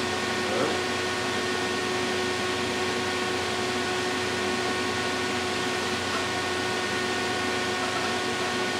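Steady hiss with a faint hum of a few steady tones, from a fan or air-conditioning unit running. A light knock about half a second in.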